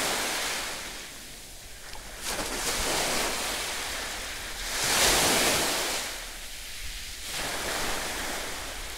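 Sea surf washing onto a beach, a steady rush of breaking water that swells and fades several times.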